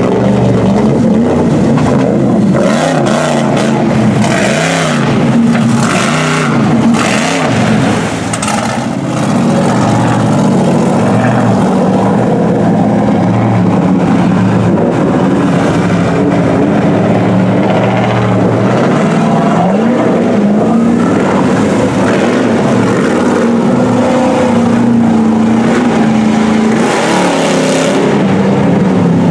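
Pickup truck engines revving up and down while driving through deep water, with water splashing and surging. The revving and splashing are strongest in the first several seconds and again near the end.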